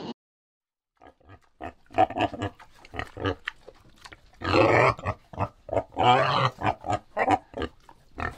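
An animal calling: a fast run of short grunting calls starting about a second in, with two longer, louder calls near the middle.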